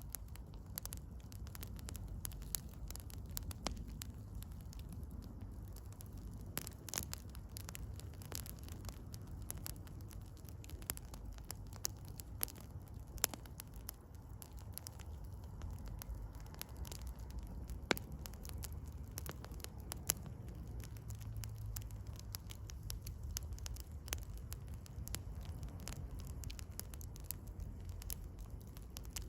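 Wood campfire crackling, with irregular sharp pops and snaps scattered through it over a low steady rumble.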